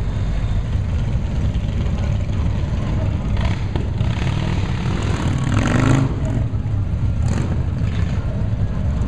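A group of motorcycle engines running together in a deep, continuous rumble, with one revved up about halfway through, rising in pitch to the loudest moment, and shorter throttle blips before and after.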